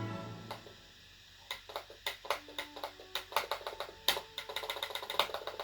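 Irregular run of sharp clicks, several a second, starting about a second and a half in: a Manhattan Amiga/Atari ST mouse's buttons being clicked while it is tested after repair. A few faint short tones sound between the clicks.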